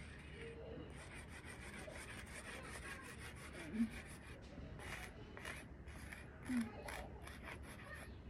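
Sidewalk chalk scraping over pavement in quick repeated strokes, a few a second. Two brief, louder low-pitched blips come a few seconds apart.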